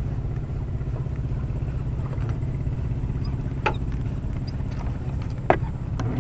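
A steady low engine drone with an even pitch, broken by two sharp knocks about three and a half and five and a half seconds in.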